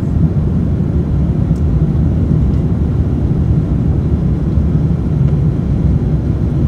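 Steady low rumble of an Airbus A350-900's Rolls-Royce Trent XWB engines and rushing airflow, heard inside the passenger cabin during the climb after takeoff.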